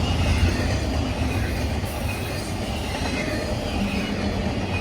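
Intermodal freight train's cars rolling past, a steady rumble of steel wheels on the rails with a faint, thin wheel squeal.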